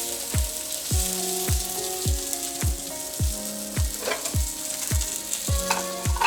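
Tilapia fillets sizzling as they shallow-fry in a little oil in a non-stick pan, a steady hiss with a couple of louder crackles. Background music with a steady beat plays over it.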